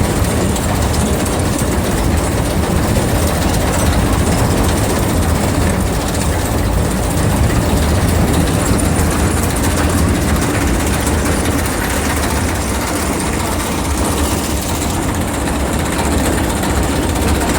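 Silage baling and wrapping machine running while packing cotton: a steady, loud mechanical clatter over a low engine hum that does not let up.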